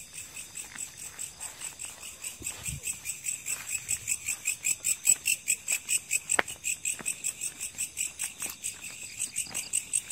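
Night insects chirping in a fast, even pulse that keeps going without a break.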